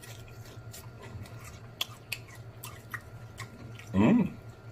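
A person chewing a mouthful of chicken, with many short, sharp crunching clicks. A brief hummed "mm" comes about four seconds in.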